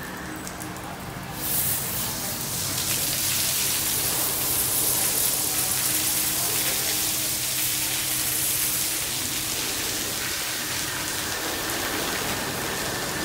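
Water from a Washworld Profile MAX car-wash gantry pouring and spraying onto the car, heard from inside the cabin: a steady rushing hiss like heavy rain on the roof that swells about a second and a half in. A low steady machine hum runs underneath.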